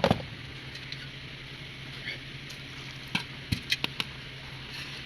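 Chicken pakora batter of gram flour, chicken and chopped vegetables being stirred and mixed in a bowl, with a knock at the start and a few sharp clicks about three to four seconds in.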